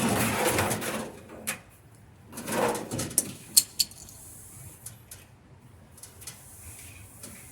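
Clothes dryer drum and sheet-metal parts being handled while the dryer is put back together. There are two bursts of scraping, then a few sharp knocks and clicks.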